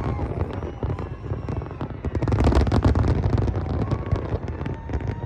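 Large fireworks display: a dense barrage of shells bursting in rapid booms and crackles, with faint whistles of rising shells. It peaks a little past halfway.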